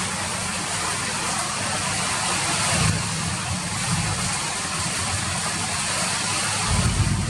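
Steady rain falling, an even hiss of drops, with a low rumble underneath that swells briefly about three seconds in and again near the end.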